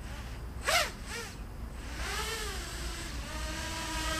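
Diatone GT-M515 5-inch racing quadcopter's brushless motors and Master Airscrew three-blade propellers whining as it comes down, the pitch swelling and then settling into a steady hum as it hovers just above the ground. A short rising-and-falling whoop is heard about three-quarters of a second in.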